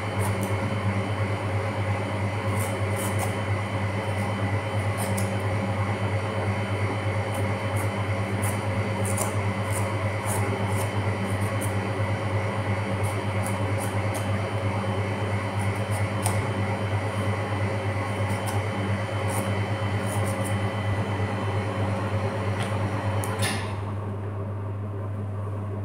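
Steady machine hum like a fan or air-conditioning unit running, with light, irregular scraping strokes of a kitchen knife shaving the skin off a bottle gourd. Near the end the hiss drops away and a lower hum is left.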